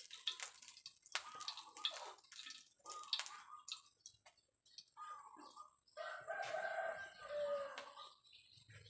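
Hot oil crackling and popping in a wok as pork sausage (mu yo) fries. Over it chickens cluck in short calls, and a rooster crows for about two seconds near the end.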